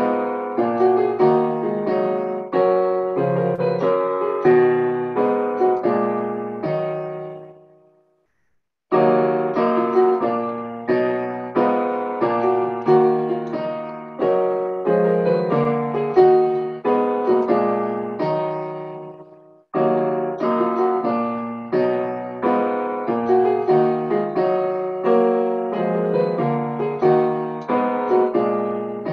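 Piano playing a hymn tune in full chords, phrase by phrase, with a pause about eight seconds in and a brief break again near twenty seconds.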